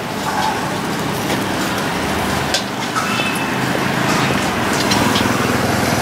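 Busy street ambience: steady traffic noise with a few short, sharp clicks and taps scattered through it.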